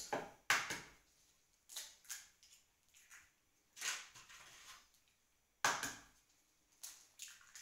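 Eggs being cracked by hand: a series of sharp knocks and crackles of breaking eggshell, with shells set down on a wooden table. The sharpest crack comes about two-thirds of the way through.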